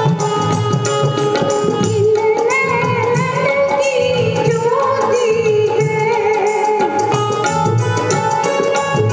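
A woman singing a Hindi film song live into a microphone, accompanied by tabla, hand drums and keyboard. The voice comes in about two seconds in with a long, ornamented line over a steady tabla rhythm and held keyboard notes.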